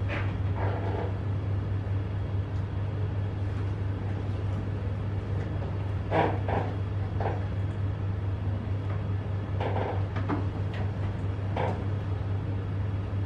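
Steady low room hum, with a few faint short sounds scattered through it, loudest about six seconds in.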